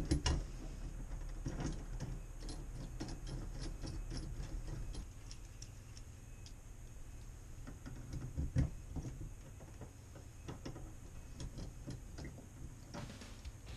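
Small metal hand tools clicking and tapping against a Moen tub-and-shower valve and its cartridge stem, in irregular light clinks with a sharper knock at the start and another about eight seconds in. Music comes in near the end.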